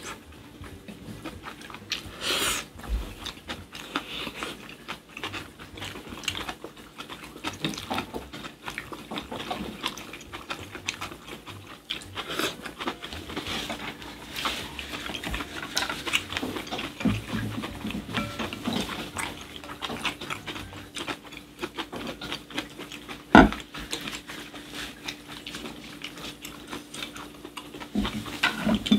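Close-up eating sounds of two people: wet chewing and lip-smacking on spicy stir-fried squid over rice, with light clicks of chopsticks and spoons on glass bowls and one louder clack about three-quarters of the way through. A faint steady hum runs underneath.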